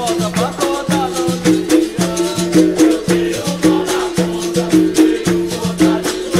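Capoeira roda music: a hand drum, rattles and hand claps in a steady rhythm, with group singing over a repeating two-note low pattern.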